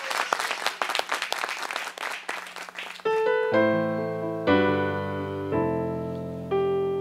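Applause that fades out over the first three seconds, then a stage keyboard playing sustained piano chords, a new chord struck about once a second, as the intro to a gospel song.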